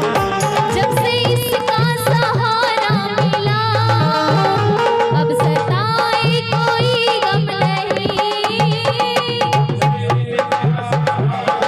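Hindi devotional bhajan music: a steady hand-drum beat under a wavering, ornamented melody line.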